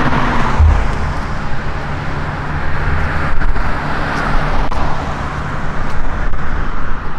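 Road traffic on a multi-lane highway: cars and vans going by with a steady rush of tyre and engine noise, swelling briefly about halfway through.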